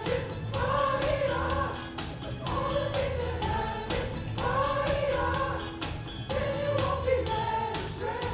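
A large group singing together in chorus over a backing track with a steady beat, the sung phrase repeating about every two seconds.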